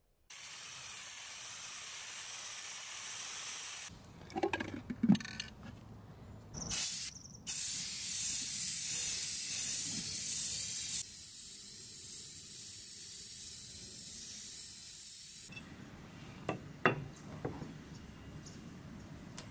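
Spray paint hissing from a spray can in several long sprays of a few seconds each, with a couple of short bursts, each starting and stopping abruptly. A few knocks and clatter of handling come between the sprays and near the end.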